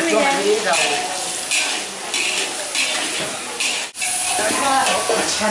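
Spatula scraping and stirring in a wok of simmering curry sauce, with a steady sizzle and several scrapes against the pan. The sound briefly drops out about four seconds in.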